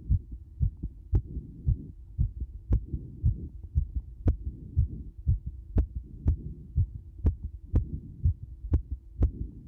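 Heartbeat thumping fast and evenly, about two beats a second, with a sharp tick on every third beat or so.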